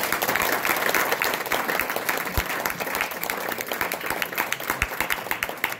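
Small audience clapping in a room: dense applause of many hands, easing off slightly near the end.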